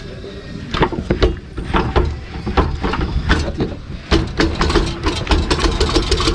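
Irregular metal knocks and clanks, several a second, as a heavy truck wheel hub is rocked and pulled off its axle by hand, over a low rumble.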